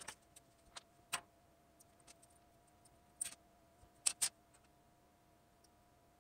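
A handful of short, sharp clicks and taps from small parts being handled on a wooden desk, the loudest a quick pair about four seconds in, over a faint steady hum.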